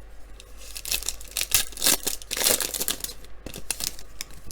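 A trading card pack's foil wrapper being torn open, with crinkling rustles that come in a quick run of strokes from about a second in and are loudest around the middle.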